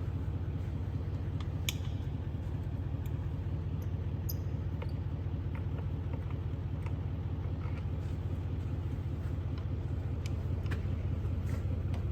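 Steady low hum of running machinery, with a few scattered light clicks and taps.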